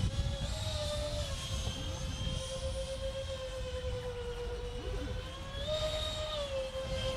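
Whine of an LX F-22 Raptor RC jet's twin 70 mm electric ducted fans in flight, its pitch stepping up briefly with throttle about half a second in and again near the end, over a low rumble.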